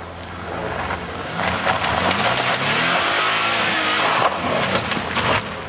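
Honda CR-V driving past close by on a loose dirt track: the engine revs up and down under load while the tyres crunch over gravel with scattered stone clicks. The sound swells as the car comes alongside and fades as it pulls away.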